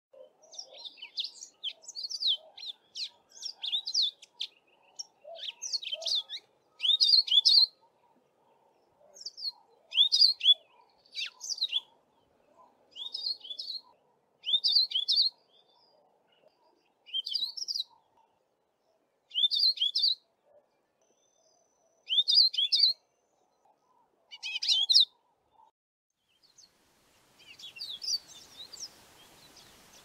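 Male yellow-fronted canary singing: a rapid run of short high twittering notes, then brief high phrases repeated about every two to three seconds.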